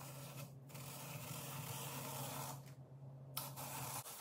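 Hand-crank apple peeler-corer being turned, its blade scraping and tearing the peel off a green apple in two runs of cranking. A low steady hum underneath cuts off near the end.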